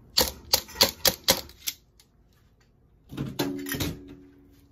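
A wire-mesh strainer knocked about six times in quick succession against a metal cooking pot as boiled rice is shaken out of it. About three seconds in comes a second clatter of metal on metal that leaves a short ring.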